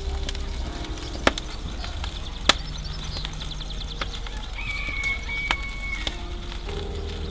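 Wood fire crackling in a wood-fired oven, with three sharp pops over a low steady rumble. A brief thin whistle comes in near the fifth second.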